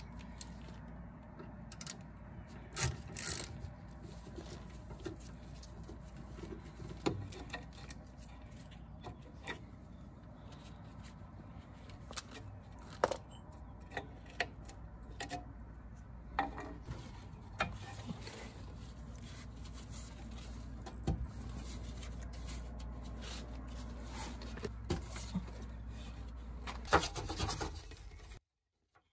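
Irregular metallic clicks, taps and scraping of a hand tool and gloved hands on a car's rear hub as the 5 mm hex bolt holding the ABS sensor is undone, over a steady low hum.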